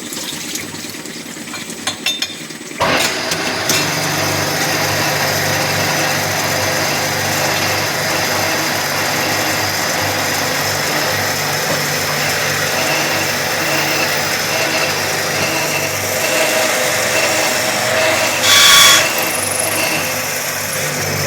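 Automatic drilling and tapping machine starting up with a few clicks and then a sudden rise about three seconds in, running steadily after that with a low hum under a wide mechanical noise. A brief louder burst comes near the end.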